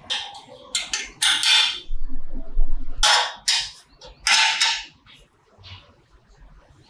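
Small combination spanner and steel bolt on a motorcycle's front-fender stay: several short metallic clicks and scrapes as the nut is fitted and tightened, quieter near the end.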